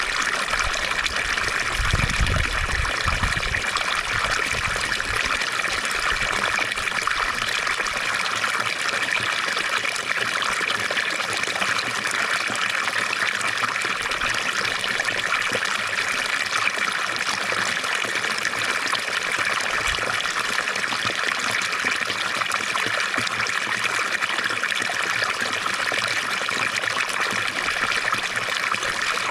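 Water from a fountain trickling and splashing steadily, with a brief low rumble about two seconds in.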